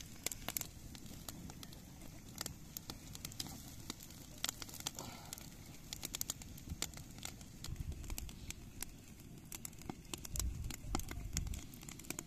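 Small wood campfire of burning sticks crackling, with frequent irregular sharp pops and snaps over a low background rumble.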